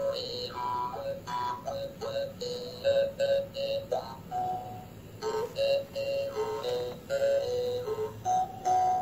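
Hmong brass jaw harp (ncas) playing a slow, lonely tune in short phrases of stepped notes with brief pauses between them.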